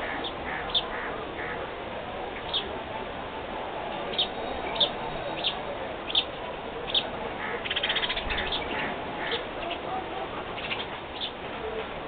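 Small birds chirping: short, sharp high chirps about a second apart, with a quick run of notes about eight seconds in, over steady background noise.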